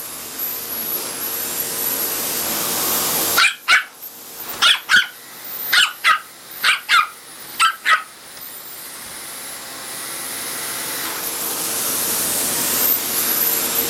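A dog barking sharply at a running vacuum cleaner, about eight barks in quick pairs over a few seconds, against the vacuum's steady whooshing hum. The dog can't stand the vacuum cleaner.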